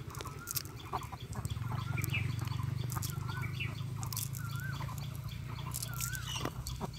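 A chicken clucking, a short rising-and-falling call repeated about every second and a half, over a low steady hum, with scattered light rustles and clicks from a nylon cast net being gathered up by hand.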